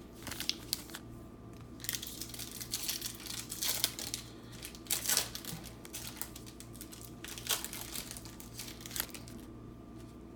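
Foil wrapper of a 1999 Stadium Club Chrome football card pack crinkling and tearing as it is opened by hand, in a run of short crackles that thins out after the middle.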